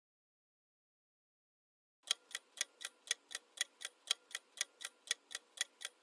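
Silence, then about two seconds in a clock-tick sound effect starts for the quiz's countdown timer: sharp, even ticks at about four a second.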